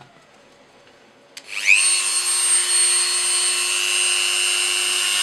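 Handheld rotary tool switched on with a click about a second and a half in. It spins up in a quick rising whine, then runs at a steady high whine. Its bit is grinding down a 3D-printed plastic skull model toward eggshell thickness.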